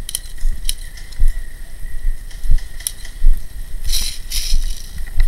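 Rustling, bumps and handling noise on a head-mounted action camera as an airsoft player moves through brush, with scattered sharp clicks. A brief louder rustle comes about four seconds in.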